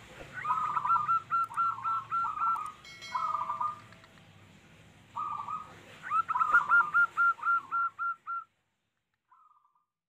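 Zebra dove (perkutut) cooing: runs of quick, rising-and-falling staccato notes, one long run at the start and another about six seconds in, with short phrases between. A brief high tone sounds about three seconds in, and the song stops suddenly at about eight and a half seconds.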